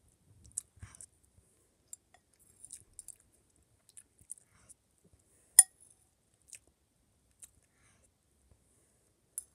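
Close-up chewing and mouth sounds of someone eating rice, with small scattered clicks and smacks. A metal spoon gives one sharp clink about five and a half seconds in.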